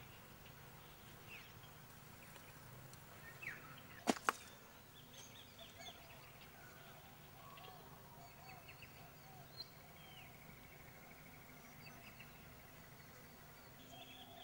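Birds chirping and calling with short whistles and trills, over a faint steady outdoor background. Two sharp clicks in quick succession about four seconds in are the loudest sounds.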